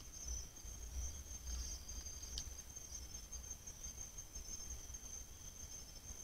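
Night insects trilling in a steady, high-pitched, pulsing chorus, with a low rumble underneath and a single sharp click about two and a half seconds in.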